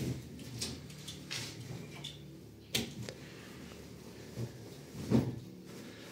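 A large cloth being handled and spread out over a carpet, rustling, with a few short knocks; the loudest comes about five seconds in.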